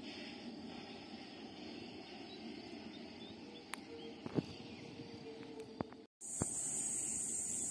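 Quiet outdoor rural ambience: a steady low hiss with a few sharp clicks. After a short break about six seconds in, a steady high-pitched insect drone takes over.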